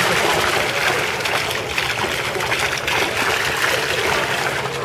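Water fountain running close up, a steady splashing and trickling of falling water.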